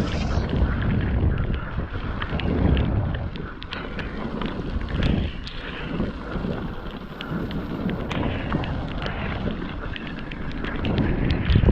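Wind buffeting the microphone of a camera on a moving mountain bike, over the rumble of the tyres on the trail, with frequent clicks and rattles from the bike over rough ground.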